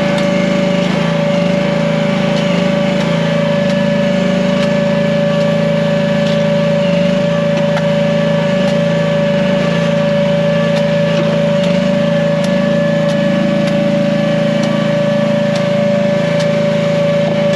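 The gasoline engine of an AGT H15 mini excavator running steadily, with a constant high whine over its drone.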